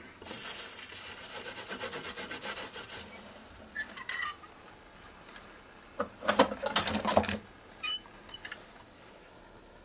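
Rubbing strokes against copper sheet while soldering, a quick run for about three seconds. Then comes a short clatter of scrapes and knocks, and one more click.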